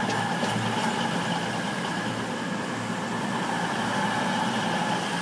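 CrossCountry Voyager diesel multiple unit pulling out past the platform, its underfloor diesel engines running with a steady hum and a few held higher tones.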